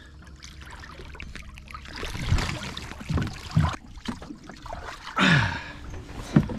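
Seawater splashing and dripping as a swimmer climbs a boat's swim ladder out of the sea, carrying a wet puppy. Several sudden louder splashes or knocks come in the middle, and a bigger surge of splashing comes about five seconds in.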